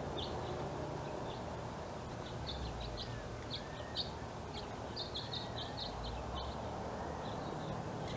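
Small finches chirping: a flurry of short, high twittering notes, thickest through the middle, over a steady low background rumble.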